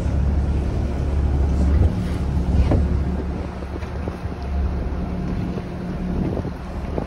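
Fishing boat's engine running with a steady low drone, with wind buffeting the microphone and a couple of light knocks.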